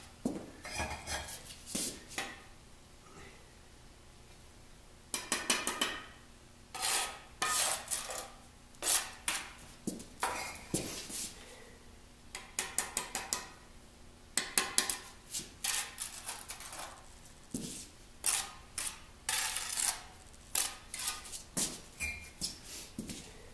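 Steel brick trowel scraping and clinking against bricks and wet mortar in short bursts of quick strokes, as bricks are set and tapped into a mortar bed for the first course.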